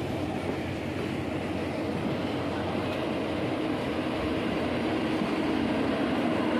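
Steady rumble and rattle of train wheels running on rails, heard from aboard a moving passenger train as it runs past a goods train. It grows slightly louder toward the end.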